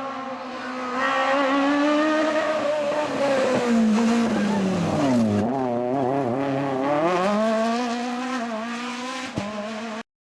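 Rally car engine at high revs: the pitch drops steeply about halfway through as the car slows, then climbs back up as it accelerates again, and the sound cuts off abruptly near the end.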